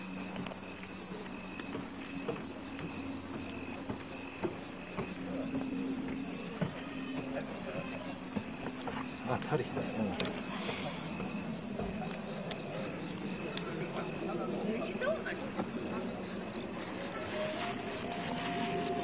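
Crickets calling in a loud, continuous high-pitched trill. Near the end a pulsing call joins in at about two beats a second.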